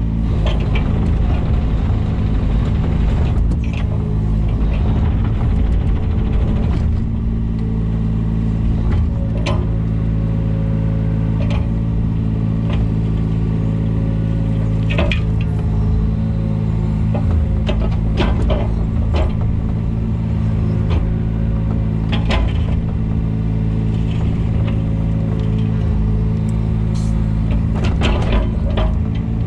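Takeuchi TB125 mini excavator's diesel engine running steadily, with scattered knocks and clanks from the digging.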